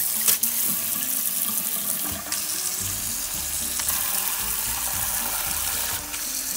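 Water spraying from a newly replaced Moen kitchen faucet side sprayer into a sink, a steady hiss of spray over running water, with a couple of short clicks just after the start.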